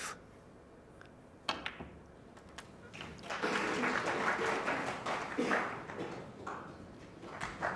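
Snooker cue striking the cue ball, with sharp ball clicks as a red is potted on a thin cut. From about three seconds in, the arena crowd starts a light applause and murmur.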